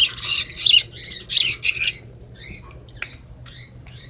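A small young bird, fallen from its nest into a water dish, squawking in a rapid run of harsh, high calls: about five loud calls in the first two seconds, then fainter, shorter calls. The agitated calling suggests it is distressed.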